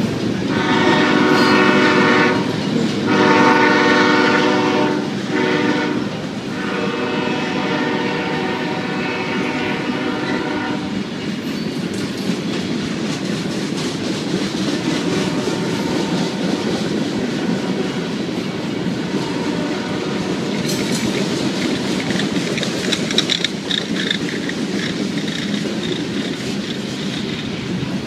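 Union Pacific freight locomotive's air horn sounding the grade-crossing signal: two long blasts, a short one and a final long one, over roughly the first ten seconds. After that the freight cars keep rolling past, their wheels clattering steadily over the rails.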